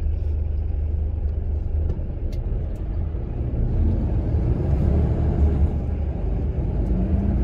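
Low, steady rumble of a truck's engine, heard from inside the cab.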